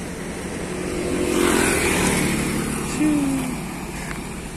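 A vehicle passing on the road, its engine and tyre noise swelling to a peak and fading. A short, low sliding tone about three seconds in is the loudest moment.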